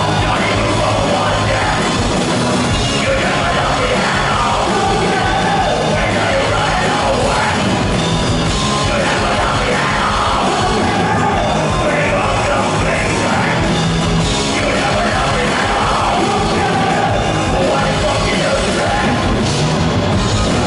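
Live rock band playing loud and steady on bass, drums and keyboards, with a shouted lead vocal over it.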